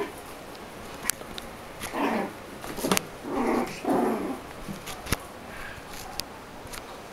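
Chihuahuas play-fighting: three short, rough growling yaps about two seconds in and twice more around three and a half to four seconds, with a few sharp clicks scattered between.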